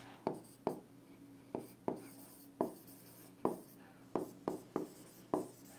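Stylus writing on an interactive display's screen: about ten short, sharp taps and scratches at uneven spacing as the strokes of handwriting go down.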